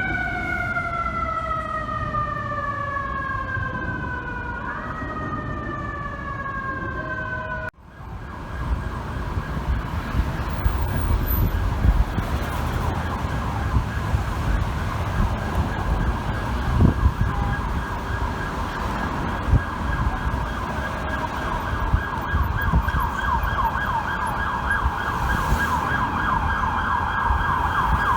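FDNY emergency vehicle sirens in city traffic: first a siren wail falling slowly in pitch, which cuts off suddenly about eight seconds in. Then an electronic siren yelping in rapid sweeps over traffic rumble, growing louder near the end.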